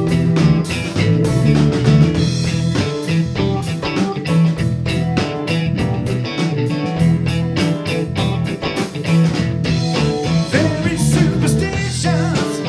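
Live band playing: electric guitar, keyboards, bass guitar and drum kit together at a steady beat.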